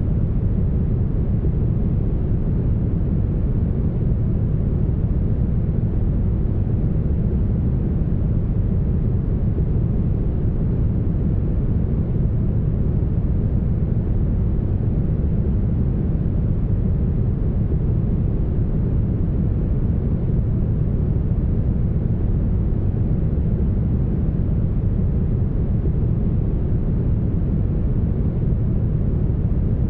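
Smoothed brown noise: a steady, even hiss with most of its weight in the bass and the high end cut away.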